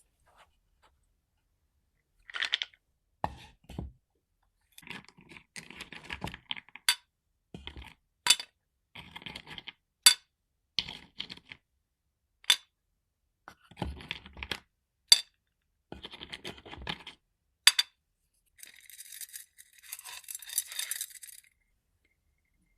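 Dried herbal-medicine ingredients and small hard containers being handled for a sleep-aid tea: a series of sharp clinks, each with short stretches of scraping and rattling between them, then a few seconds of steady rustling near the end.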